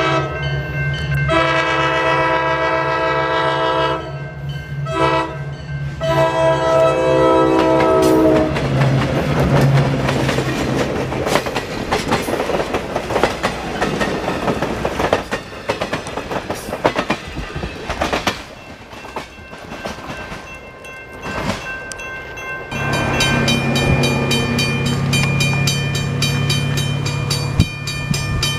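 Diesel locomotive's multi-chime air horn blowing two long blasts, a short one and a long one, the grade-crossing signal, over the steady drone of the engine. Then passenger cars roll past with wheels clattering over the rail joints. Near the end the horn sounds again over the engine.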